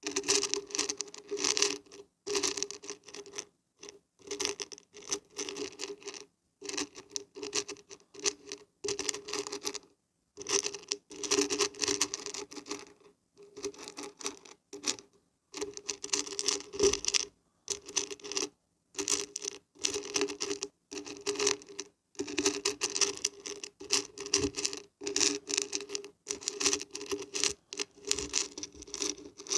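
Dried beans and barberries being shaken, a rattling patter that comes in bursts of a second or two with brief silent pauses between them.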